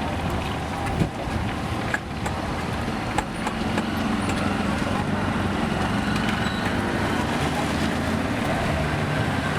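Street traffic: a motor vehicle engine running steadily, with scattered light clicks and knocks.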